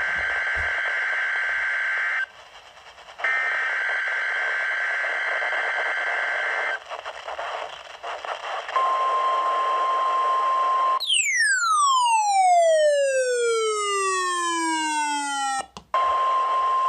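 NOAA Weather Radio test signal over radio hiss: two raspy, buzzing SAME data bursts of about three and a half seconds each, a second apart. About nine seconds in comes the steady 1050 Hz weather-radio warning alarm tone, broken off by a loud tone with a fan of overtones that sweeps down from high to low over about four and a half seconds and stops suddenly. The alarm tone comes back near the end.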